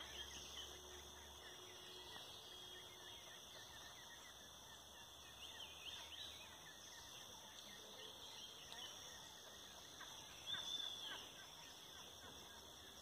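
Faint, scattered calls from a small flock of white domestic ducks, with one louder call near the end, over a steady high-pitched background hiss.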